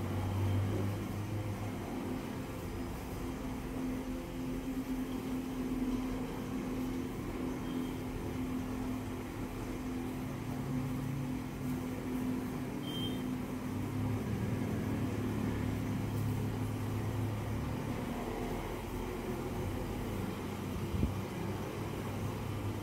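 Steady low mechanical hum with a faint drone, like a motor running, under background room noise.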